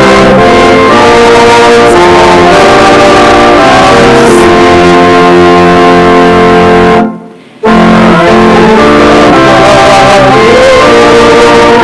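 Instrumental hymn music from the church band, with held chords, recorded at a very high level. The sound drops out for about half a second around seven seconds in, then comes back.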